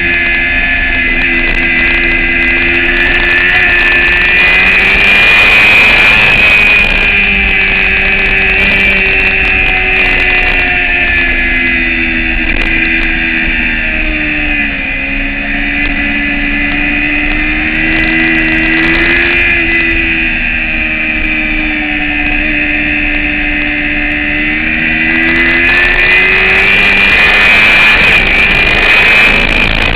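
Track-day motorcycle engine running hard at high revs. The engine note falls and climbs again several times, with a deep dip about halfway through and another near the end.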